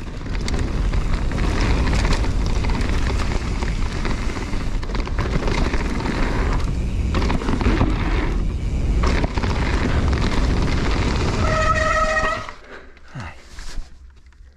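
Mountain bike riding fast downhill: steady, loud wind buffeting on the camera microphone, mixed with tyre rumble over dirt and a wooden ramp. Near the end a brief disc-brake squeal as the bike slows to a stop, after which it is much quieter.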